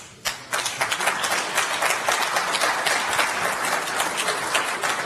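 Audience applauding: many hands clapping in a dense, steady patter that breaks out suddenly just after the start.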